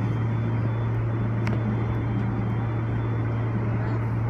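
Steady low hum inside an R160A subway car standing at a station platform, even in level with no rise or fall in pitch. The sound is somewhat muffled by a phone case over the microphone.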